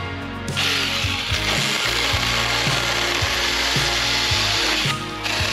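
Handheld 24-volt battery mini chainsaw running and cutting through small shrub branches: its motor and chain start about half a second in, stop briefly near the end, then start again. Background music with a steady beat plays underneath.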